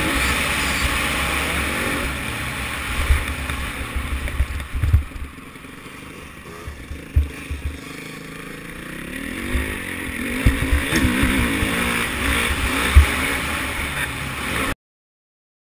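Onboard sound of a Yamaha YZ125 two-stroke motocross bike riding a dirt track, its engine mixed with wind on the microphone and low knocks from the bumps. The engine eases off about five seconds in, then climbs in pitch as it revs back up, and the sound cuts off suddenly near the end.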